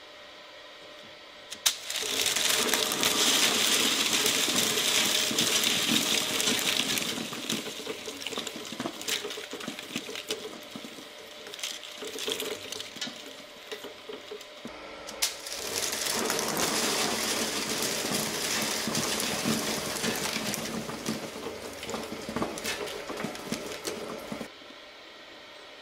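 Twin-shaft shredder's steel cutter blades chewing through paper drinking straws over the steady hum of the running machine. Dense crunching and crackling starts about two seconds in and thins out, then a second burst of shredding from about fifteen seconds in stops shortly before the end.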